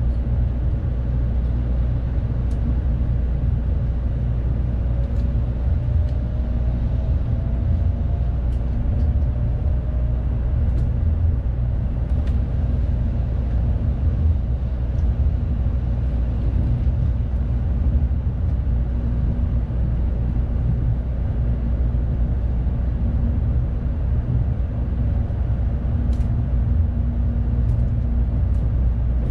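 A Tokaido Shinkansen train pulling away from the station and gathering speed, heard inside the passenger cabin: a steady low rumble of the running train, with a faint tone that rises in pitch as it accelerates.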